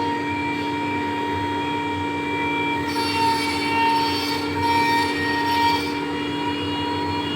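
Roland DWX-52D dental milling machine running, its spindle giving a steady high whine while the bur cuts an Orodent framework blank. The scraping of the cut swells and fades in short surges through the second half as the tool moves over the disc.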